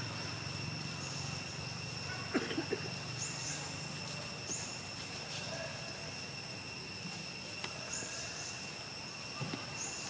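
Outdoor ambience: a steady high insect drone, with a few short high chirps scattered through it. A brief rustle of clicks comes about two and a half seconds in.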